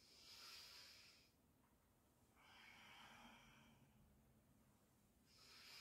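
A woman breathing slowly and deeply, faint: three long breaths about two seconds apart, each a soft rush of air, paced to a yoga stretch.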